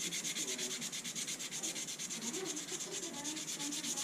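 Sandpaper rubbed by hand back and forth over a steel knife tang in quick, even strokes, scuffing it to a clean surface for the epoxy to grip.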